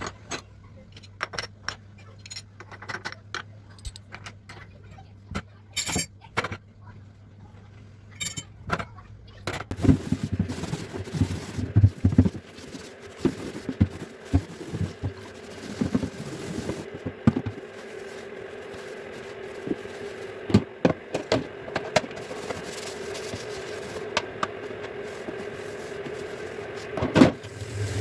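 Kitchen clatter: scattered clicks and knocks of dishes and utensils being handled, growing busier about ten seconds in over a steady hum.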